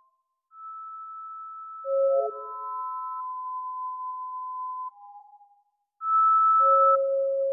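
Electronic music of pure, plain sine tones: held notes lasting a second or two, sometimes two together, stepping between pitches. The sound drops out briefly at the start and again a little before the last two seconds, when a louder pair of tones comes in.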